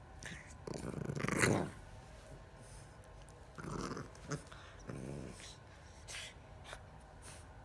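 English Bulldog puppy play-growling and grunting in three short bouts, the loudest and highest-rising about a second in, while mouthing its paw; a few short sharp snuffles or clicks follow.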